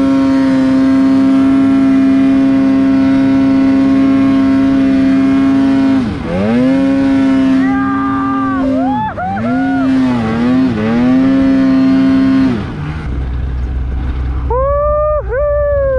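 Snowmobile engine running at high, steady revs while the sled climbs through deep snow. The pitch drops and recovers about six seconds in, and again several times a few seconds later. Near the end come a few quick revs that rise and fall.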